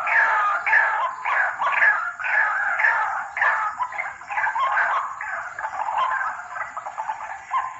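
White-breasted waterhen (ruak-ruak) calling: a quick series of harsh repeated notes, each falling in pitch, about two a second, growing weaker in the last few seconds.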